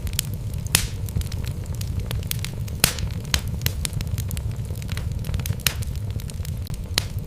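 Wood logs burning in a fireplace: a steady low rumble of the flames with frequent sharp crackles and pops, two louder snaps about a second in and near three seconds.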